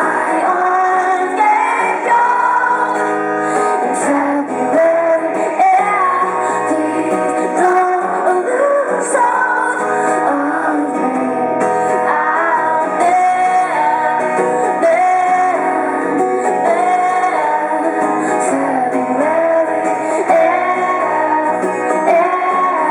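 Live performance of a song: a woman singing over acoustic guitar accompaniment.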